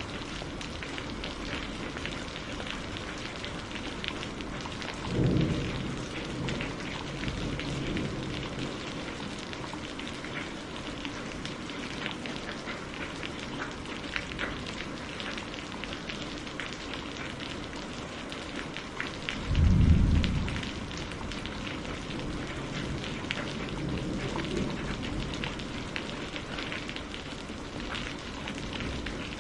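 Steady rain with a patter of drops, and two short low rumbles of thunder, about five seconds in and about twenty seconds in, the second louder.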